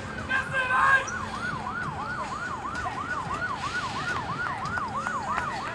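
Emergency vehicle siren sounding a fast yelp, rising and falling about three times a second, starting about a second in, with voices over the first second.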